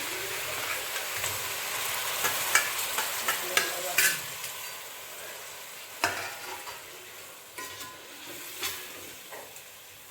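Mutton head pieces frying in hot oil and onion-spice masala in a pot, sizzling, while a spoon stirs and knocks against the pot several times. The sizzle is strongest in the first few seconds, then dies down.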